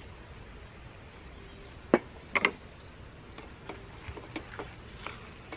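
Sharp knocks about two seconds in, a loud double clack just after, then lighter taps: a wooden spatula knocking and scraping in a frying pan while stirring food.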